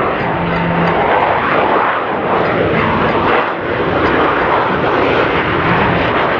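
Blue Angels F/A-18 Super Hornet jet engines, a loud, steady rush that swells and fades slightly as the jets fly by.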